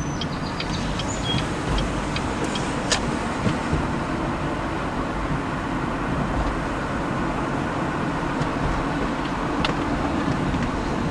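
Steady road noise inside a moving car: a low rumble of tyres and engine, with a few sharp clicks.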